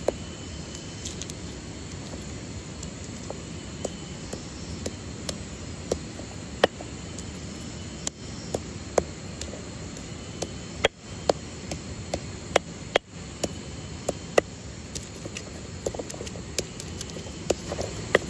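A hand-held stone pounding and grinding chillies and spices into a paste on a flat rock: irregular sharp knocks of stone on stone, one or two a second and more often in the second half, over a steady hiss of flowing river water.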